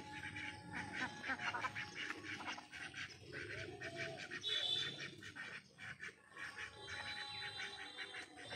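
Domestic ducks quacking, many short quacks in quick succession, with a brief high whistling note about halfway through.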